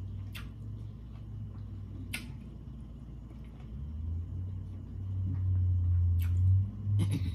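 A person chewing food with the mouth closed, with a few sharp clicks, over a steady low hum that grows louder from about four seconds in.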